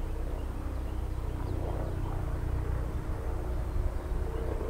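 Low, steady diesel engine rumble from the CSX train's approaching CW44AC locomotives, with a few faint bird chirps.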